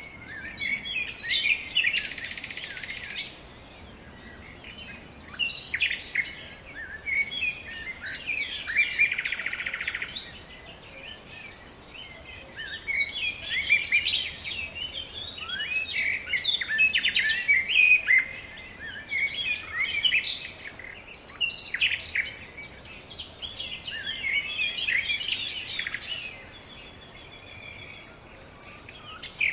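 Several birds chirping and calling together in a dense chorus of short, quick chirps. It comes in bursts with brief lulls a few seconds in, about a third of the way through, and near the end.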